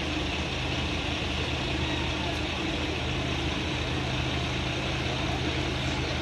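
Fire truck's diesel engine running steadily at idle, a low even drone, over a steady hiss.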